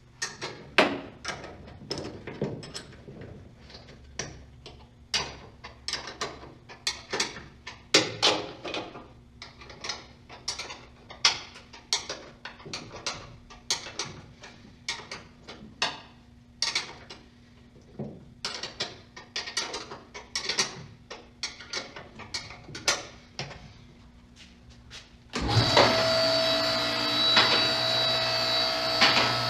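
Metal parts and hand tools clinking and clanking at irregular intervals, as front suspension and steering parts are handled and fitted. About 25 seconds in, a loud, steady, whirring machine noise cuts in suddenly.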